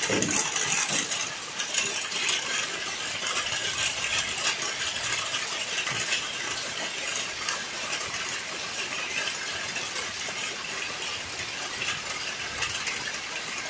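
Heavy rain falling steadily, a dense patter of drops on wet ground and puddles.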